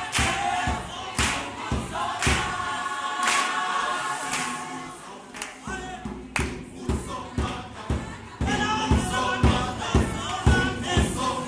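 A choir singing in harmony over regular low thumps about twice a second that keep the beat. The singing drops softer around the middle and swells again near the end.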